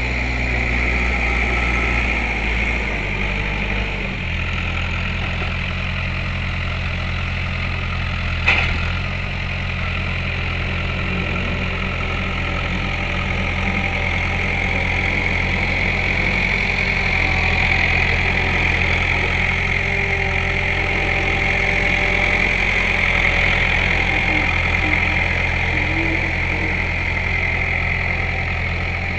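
Gehl 4500 skid steer loader's engine running steadily close by, its pitch stepping down about four seconds in. A single sharp knock comes a little after eight seconds in.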